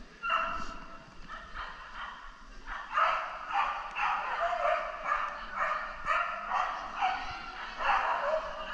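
A dog barking over and over: a few barks at first, then about two barks a second from about three seconds in.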